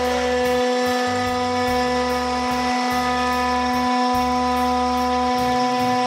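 6090 CNC router's spindle running with a steady whine while its bit cuts lettering into hardwood. Beneath the whine, a lower hum breaks off and resumes every second or so as the head moves.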